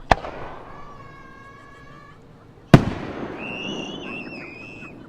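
Two aerial firework shells bursting, each a sharp bang with a trailing rumble. The first comes right at the start and the second, louder one about two and a half seconds later.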